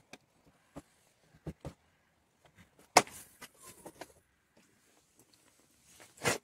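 Clicks and clunks of a Volkswagen Golf Mk4's bonnet being unlatched at its swing-out grille-badge catch and lifted open. There are a few light clicks first, one sharp clack about three seconds in followed by brief rattling, and a knock near the end.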